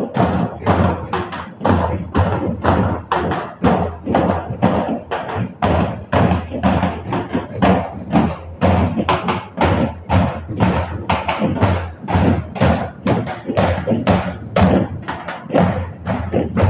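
Procession drumming: several large stick-beaten drums, metal-shelled bass drums and a laced wooden barrel dhol, played together in a fast, steady beat of about four strokes a second.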